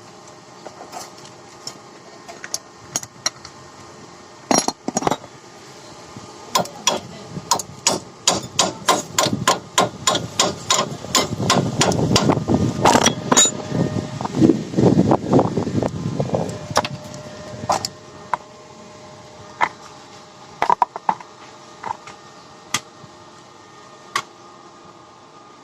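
Hammer striking metal: scattered blows, then a long run of quick repeated strikes at about two to three a second with a low rumble beneath the middle of it, easing back to a few single blows near the end.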